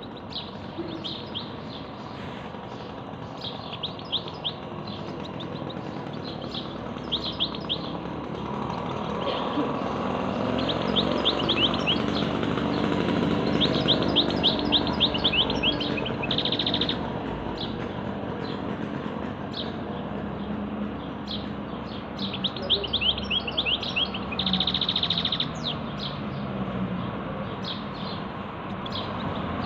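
Small caged songbird singing in repeated short runs of quick, high chirps, with two denser buzzy phrases. A low background rumble swells and fades under it in the middle.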